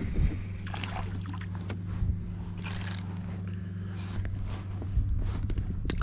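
A small bass is lifted out of the water on the line and unhooked in a kayak, with short splashing and handling noises about a second in, near three seconds and again near the end. A steady low hum runs underneath.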